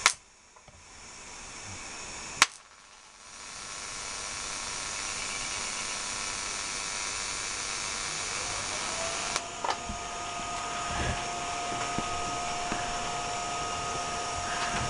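Pulsed DC TIG welding arc from a Miller Diversion 165 driven by a homemade pulse box. Its hiss grows gradually louder, then from about eight seconds in a whine rises in pitch as the pulse frequency is turned up and holds at a steady high tone. Two sharp clicks come at the very start and about two and a half seconds in.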